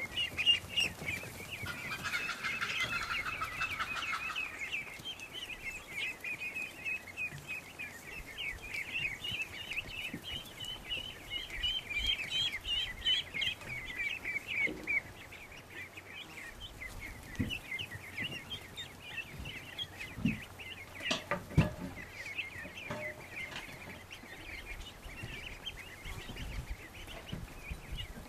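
A flock of Rouen ducklings peeping continuously, many short high calls overlapping. A few sharp knocks come about three quarters of the way through.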